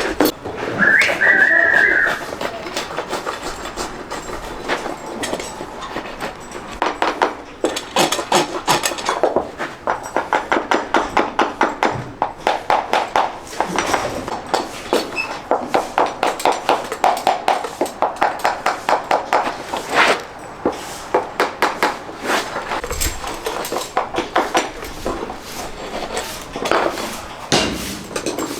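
Farrier's rasp filing a horse's hoof in quick, repeated strokes. A brief high whistle-like tone sounds about a second in.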